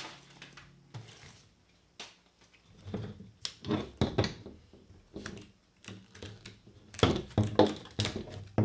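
Handling noise from a folded aluminium iFootage Gazelle TA6 tripod being lifted and turned on a tabletop. Its legs, clamps and buckles knock and click irregularly, busiest near the end.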